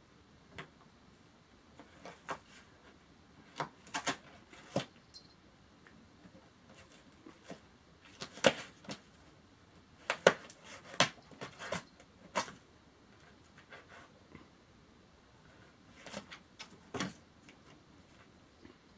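A cat clawing and biting at a cardboard box, giving short tearing and scratching sounds in irregular clusters separated by pauses.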